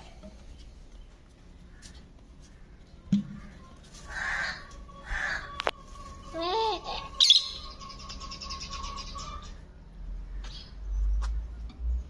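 Small parakeet calling: a few short chirps, then one sharp loud chirp followed by a rapid, high chattering trill lasting about two seconds.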